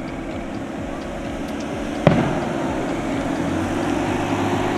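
A single sharp firework bang about two seconds in, over the steady drone of an airplane circling overhead.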